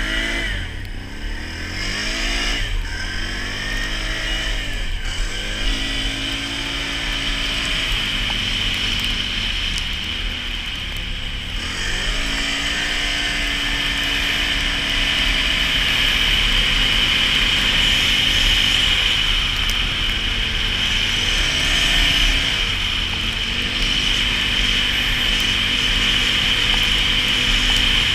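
Can-Am Renegade 570 ATV's V-twin engine being ridden: its pitch rises and falls several times in the first few seconds as the throttle is blipped, then it climbs and holds at a steadier, higher pitch for the rest.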